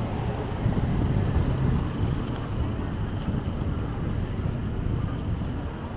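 Road traffic on a busy city street: cars driving past with a steady low rumble, a little louder in the first couple of seconds.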